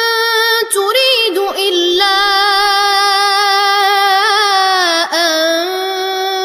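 A boy reciting the Quran in the Warsh reading, chanting in long, melodic held notes with a slight waver in pitch, broken by two short pauses.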